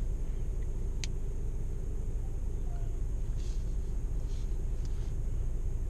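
Volkswagen GTI heard from inside the cabin: a steady low rumble of the engine while it sits in the pit-lane queue, with one sharp click about a second in.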